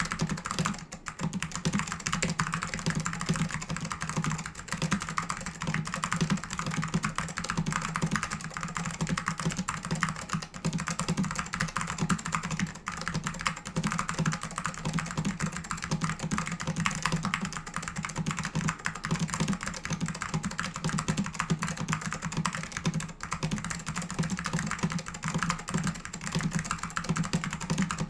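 Fast, continuous typing on a mechanical keyboard with SKCM Orange Alps tactile switches and thick dye-sub PBT keycaps in a plastic case: a dense, even run of clacks.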